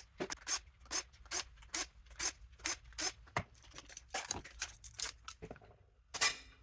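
Hand cutters snipping repeatedly in a steady rhythm, about two short crisp cuts a second, with a brief pause near the end before one last snip.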